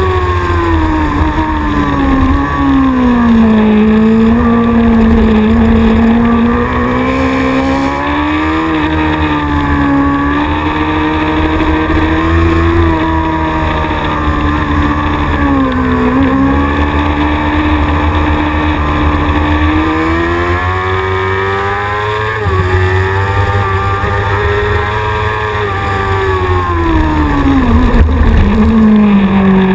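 Racing motorcycle engine at full speed, recorded onboard, its pitch climbing and falling as the rider accelerates, shifts and brakes through corners, with sharp drops about 16 seconds in and again near the end. A steady low rush of wind noise runs beneath it.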